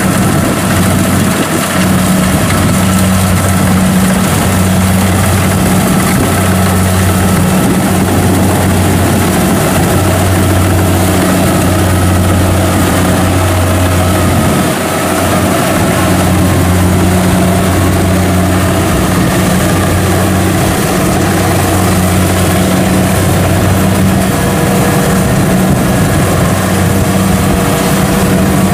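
Kubota DC70 Plus rice combine harvester running at working speed while cutting and threshing rice: its diesel engine and threshing machinery give a loud, steady drone.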